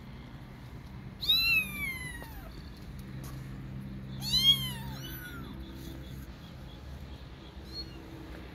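Kitten meowing: two high-pitched meows, the first falling in pitch about a second in and the louder second rising and falling about four seconds in, followed by a couple of fainter short mews.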